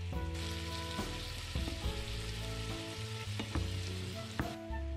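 Marinated thin-sliced beef for bulgogi sizzling in a ceramic-coated frying pan as it is stirred, with a few knocks of a wooden spatula against the pan. The sizzle starts just after the beginning and dies down near the end, over background music.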